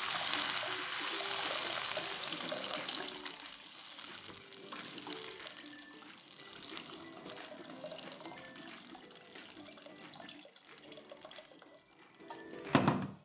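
Water pouring in a thin stream from a jug into a pan of hot spice paste, splashing and gurgling as the pan fills, slowly growing quieter. A short louder sound just before the end.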